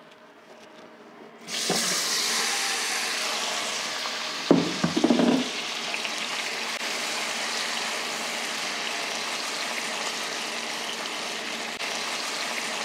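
Roasted butternut squash, sweet potato and onion pieces tipped into hot oil and spices in a pot, sizzling suddenly about a second and a half in and then steadily. A wooden spatula clunks against the pot a few times around five seconds in.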